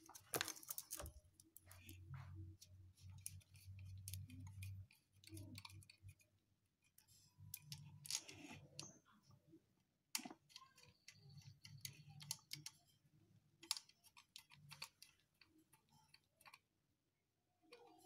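Near silence with scattered faint clicks and a brief, faint low hum that comes and goes.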